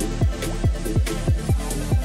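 Electronic background music with a deep kick drum that drops in pitch on every hit, several hits a second, over sustained synth notes and light hi-hat ticks.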